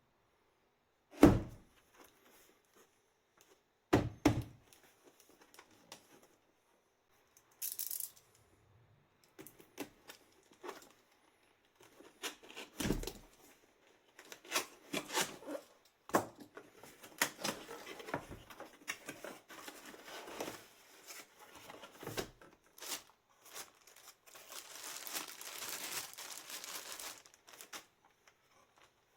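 Packaging being handled and opened: a few sharp thuds of things set down or knocked, with scattered clicks, rustling and tearing, and a longer stretch of rustling or tearing near the end.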